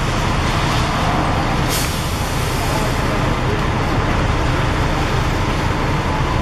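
Intercity coach's diesel engine running close by with a steady low rumble, and a short hiss of air-brake air nearly two seconds in.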